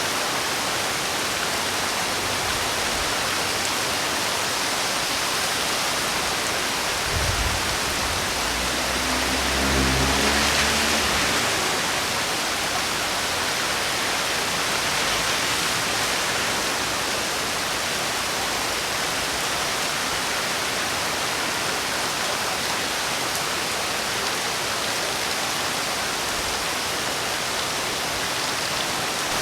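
Heavy rain falling steadily, an even hiss. A short low thump comes about seven seconds in, and a low rumble swells and fades about ten seconds in.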